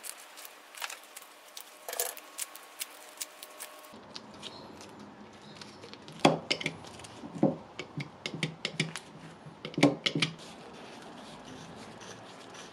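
Handling noise of small metal wrench parts in nitrile-gloved hands: quick light clicks and ticks, with three louder knocks in the second half.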